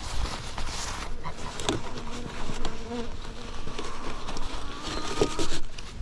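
Honeybees buzzing around an opened hive, a wavering hum heard most clearly from about two seconds in, with scattered clicks and rustles from the ratchet strap being handled.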